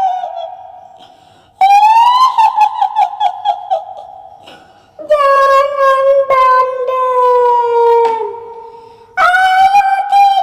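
High-pitched, drawn-out wailing cries of a kuntilanak ghost sound effect. Three long cries start suddenly, about a second and a half in, about five seconds in and near the end. Each one quivers and slides slowly down in pitch.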